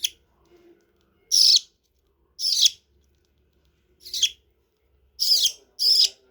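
Baby budgerigar chicks giving short, high food-begging cries, about six of them at irregular gaps.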